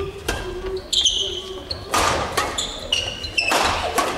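Badminton rally: rackets strike the shuttlecock several times with sharp smacks, and court shoes squeak in short high chirps on the wooden hall floor.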